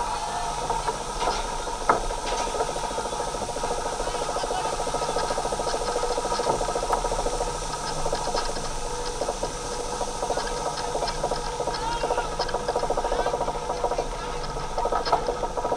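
Roller coaster train being hauled up the chain lift hill: the lift chain and ratchet clatter in a fast, steady rhythm of clicks.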